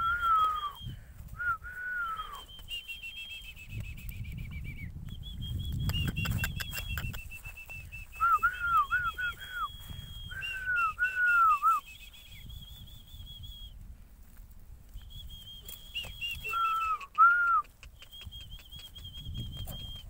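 Whistled notes in several runs: a high, slightly warbling tone held for a second or two at a time, with shorter lower notes that rise and fall laid over some of the runs. There is a low rumble about five to seven seconds in.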